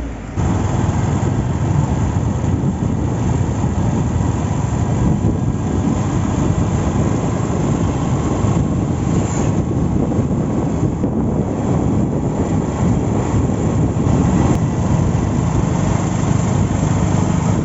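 A vehicle on the move, a steady low rumble of engine and road noise mixed with wind on the microphone. It starts abruptly about half a second in.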